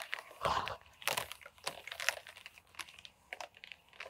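Hands working black plastic drip-irrigation tubing onto a fitting: irregular plastic clicks and crinkly rustling.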